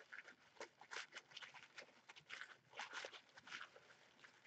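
Faint rustling and crinkling of tissue paper as fingers peel apart and fluff the layers of a paper flower, in short irregular crackles.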